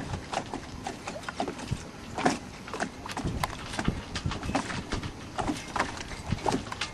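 Irregular hollow knocks and slaps, several a second, of small waves lapping against a boat's hull.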